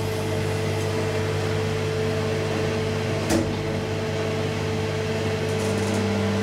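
Steady electrical hum of a traction elevator waiting with its doors closed, with a single sharp click a few seconds in. Near the end a second, higher hum comes in as the drive starts up before the car moves off.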